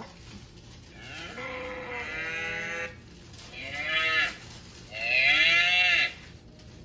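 Cow mooing three times: a long moo about a second in, a short one, then a louder one near the end.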